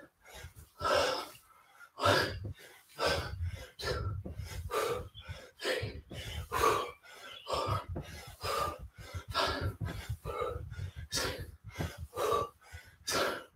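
A man panting hard from exertion during a workout: forceful breaths and gasps, about one to two a second.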